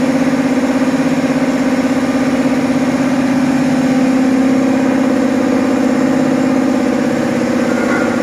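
Motor-driven feed pump of a filter press running steadily: a constant hum with a fast pulsing beat.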